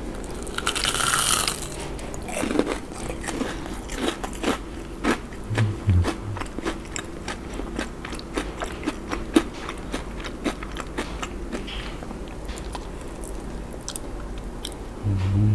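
Close-up eating sounds of a crispy, breaded, deep-fried shrimp donut: a loud crunching bite about a second in, then chewing with many small crunches and mouth clicks.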